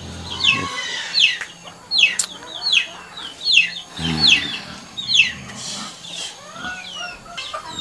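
Chickens calling: a run of short, high chirps that drop in pitch, about two a second.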